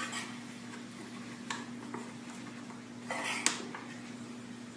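A few light clinks and knocks of coffee cups and spoons, spaced apart, over a steady low hum, with a short noisy rustle just after three seconds in.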